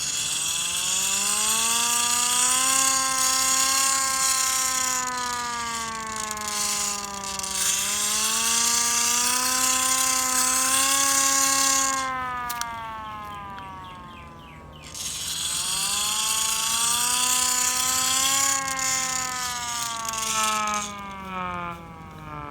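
Hand-held air raid siren wailing, its pitch swelling and sagging with a mechanical whir over the tone. It winds down about twelve seconds in, starts up again a few seconds later, and winds down again near the end.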